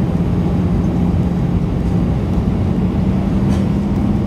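Cabin noise inside an Airbus A319-112 on approach: the steady drone of its CFM56 turbofan engines and airflow, with a constant low hum, heard from a window seat beside the wing.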